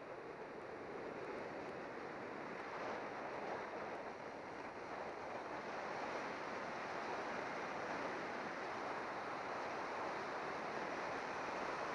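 Wind rushing over the microphone of a bicycle-mounted camera on a fast road descent: a steady hiss that grows a little louder as speed builds.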